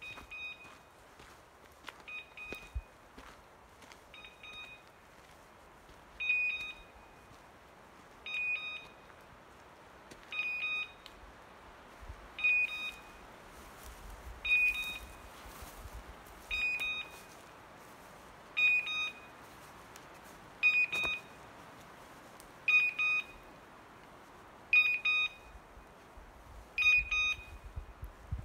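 A hunting dog's beeper collar gives a short, high electronic beep about every two seconds in an even rhythm. This fast, steady beeping is typical of a beeper collar's point mode, which marks a setter standing on point.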